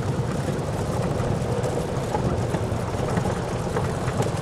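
A vehicle engine running steadily at low speed, a continuous low rumble with a few faint knocks and rattles.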